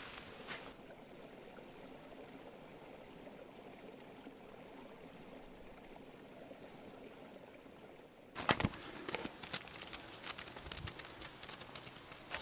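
A creek trickling faintly through an opening in its ice. About eight seconds in, footsteps start crunching through snow.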